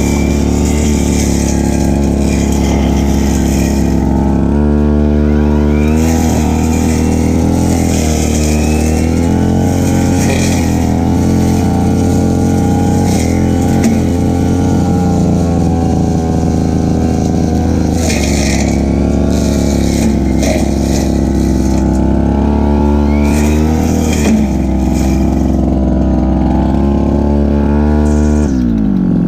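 Stihl FR3001 backpack brushcutter's two-stroke engine running at high revs while cutting grass, its pitch shifting up and down with the load. The revs drop sharply near the end.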